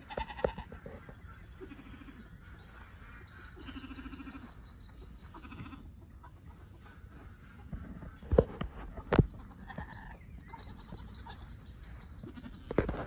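An animal bleating in short calls several times in the background. Two loud sharp knocks come about eight and nine seconds in, and another near the end.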